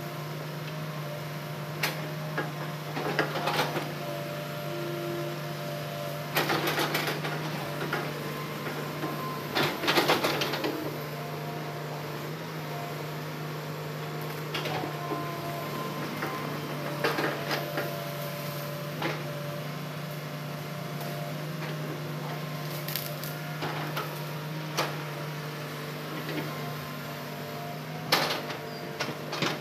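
Hitachi hydraulic excavator running steadily, its engine and hydraulics giving a constant hum, with irregular knocks and clanks as the boom and bucket work against logs, the loudest about ten seconds in.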